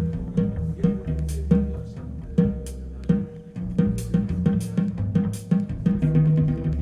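Recorded music played back over a Gryphon high-end stereo system: a deep, plucked-sounding bass line under sharp percussion hits.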